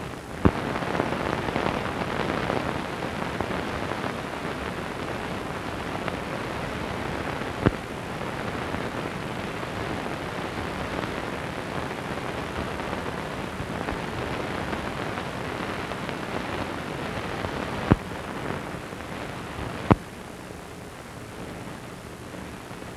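Steady hiss from a blank, missing-audio stretch of an old film soundtrack transfer, broken by four sharp pops. The hiss grows louder just after the start and drops after the last pop.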